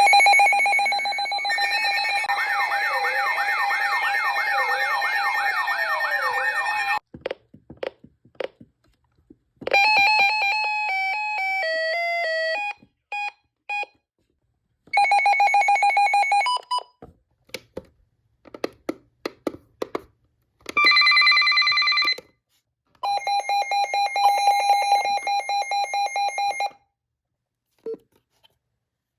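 A series of electronic siren and alarm tones sounded one after another, with clicks in the gaps. First comes a steady tone with a rising-and-falling wail over it, then a stepped, falling run of tones, two short steady tones, and a rapidly pulsing beep that stops a few seconds before the end.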